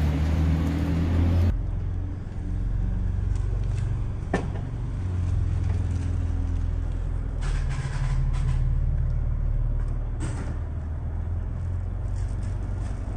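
A vehicle engine idling with a steady low rumble, with a few brief knocks and rattles.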